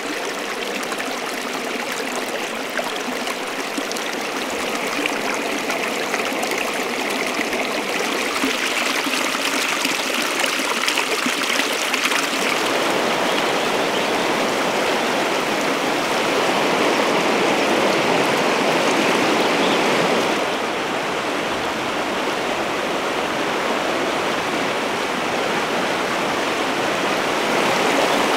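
Shallow mountain stream rushing over rocks, a steady wash of water. The sound shifts in tone twice, about twelve and about twenty seconds in.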